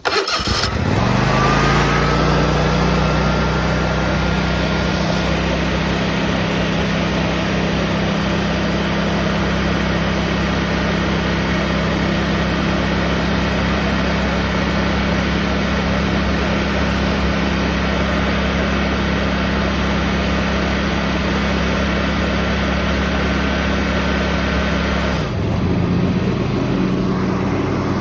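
Toro Time Cutter zero-turn mower's V-twin engine starting, catching and rising to speed within about a second, then running steadily. Its note changes about 25 seconds in.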